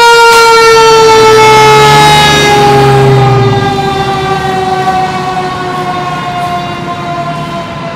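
Fire engine siren winding down: one loud tone slowly falling in pitch, fading after about three seconds.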